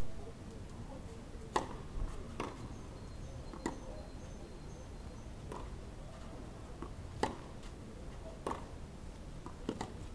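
Tennis balls struck with rackets and bouncing on a clay court: about seven sharp pocks, irregularly spaced one to two seconds apart, over a faint steady background.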